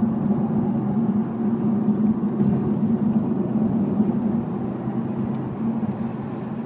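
Audi R8 V10 Plus's 5.2-litre V10 running steadily while the car cruises, heard from inside the cabin with the road noise. There is no revving, and the sound eases slightly near the end.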